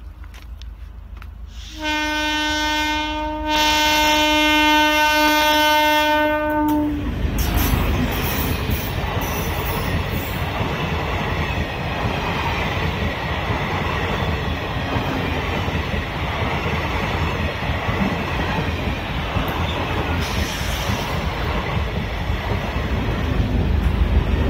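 Electric multiple-unit commuter train giving a short horn note at the start, then a long loud horn blast from about two seconds in to about seven seconds. It then runs past close by with a steady rumble and clatter of wheels on the rails, which grows louder near the end.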